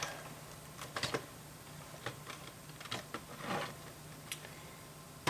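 LEGO plastic bricks being handled and fitted: scattered light clicks and taps, one or two at a time, with a short rustle about three and a half seconds in.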